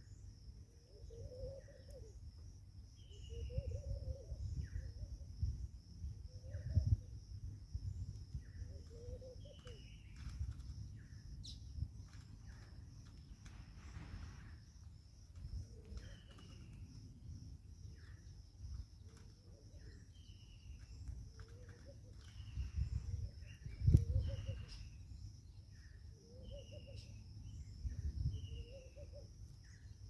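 Wild birds calling over and over: short falling chirps every couple of seconds with lower calls in between, over a steady high-pitched shrill and a low rumble. A sharp knock about three-quarters of the way through is the loudest sound.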